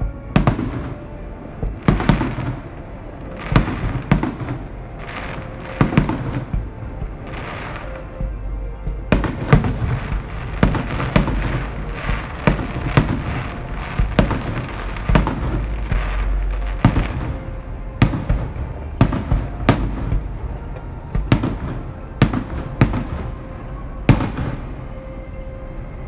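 Fireworks shells bursting, a bang every second or two at first, then a dense rapid barrage through the middle, then spacing out again, with a low rumble under the bangs. Show music plays beneath the explosions.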